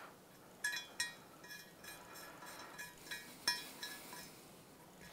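Light metallic clinks and ticks, about six of them at irregular intervals, as a steel thread chaser is turned by hand in an exhaust stud hole of an aluminium cylinder head, chasing out the threads.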